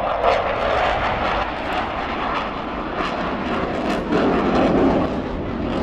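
Eurofighter Typhoon's twin EJ200 turbofan engines heard as a steady jet rush from an aircraft in flight, swelling louder about four seconds in.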